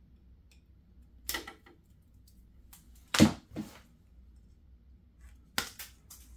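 Packaging and parts being handled: a few short scrapes and knocks, the loudest about three seconds in.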